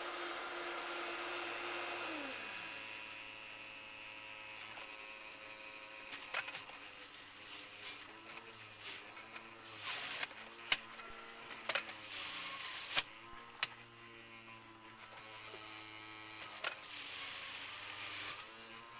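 Electric juicer motor running as pineapple is fed through it. Its pitch dips and recovers again and again under the load, with sharp knocks of fruit and plunger in between.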